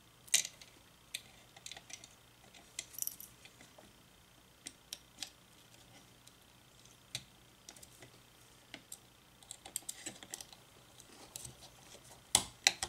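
Small scattered clicks and taps from the DialGizmo pulse-to-tone converter's circuit board and plastic housing being handled and pressed together by hand, with a sharper pair of clicks about half a second in and again near the end.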